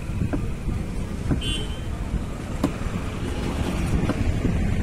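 Knife chopping fish on a wooden chopping block: four sharp chops about a second apart, over a steady low rumble.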